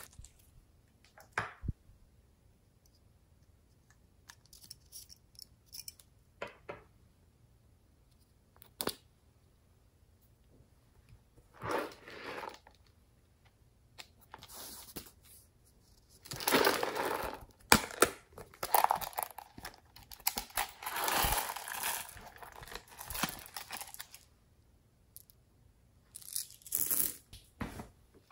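Plastic packaging crinkling and tearing in short scattered bursts with quiet gaps between them, busiest in the second half.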